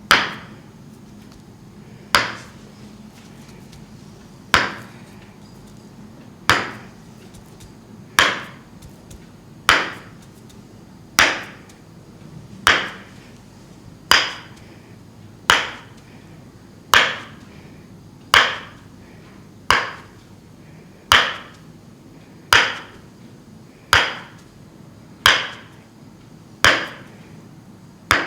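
Tok-Sen massage: a wooden mallet tapping a wooden wedge against the back in slow, even strokes, about one every second and a half, each knock with a short woody ring.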